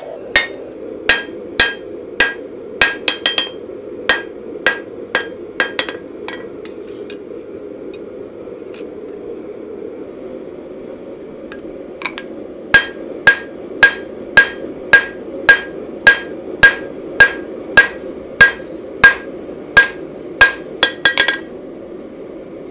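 Hand hammer striking a red-hot laminated knife blade on a steel anvil, each blow ringing: an irregular group of blows, a pause of about six seconds, then an even run of about fifteen blows, a little under two a second, stopping shortly before the end. A steady low rushing, the gas forge burner, runs underneath.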